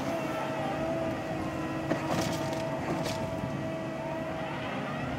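Mecalac carrier with a Herder flail mower running steadily, a level whine over the engine sound. Two short hisses come about two and three seconds in, and the pitch starts to rise at the very end.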